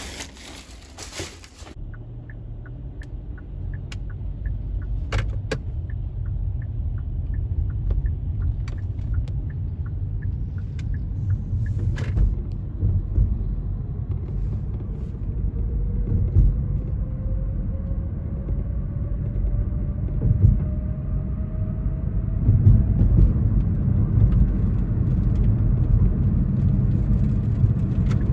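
Car interior while driving: tyre and engine rumble that grows louder as the car picks up speed, with a slowly rising whine in the second half. For the first ten seconds or so a turn signal ticks about twice a second.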